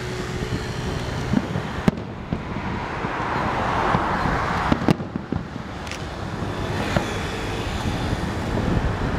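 Aerial firework shells bursting: sharp bangs at irregular intervals, the two loudest about two and five seconds in.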